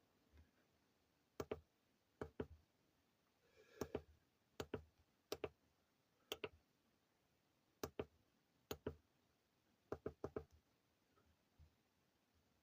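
Faint button clicks on a SoFar HYD hybrid inverter's front-panel keypad, pressed one at a time while stepping through its settings menu. There are about a dozen sharp clicks at irregular intervals, many in quick pairs.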